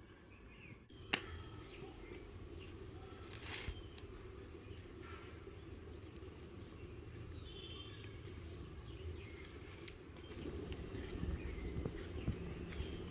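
Farmyard animals calling in short chirping cries over a steady low background, with a sharp click about a second in.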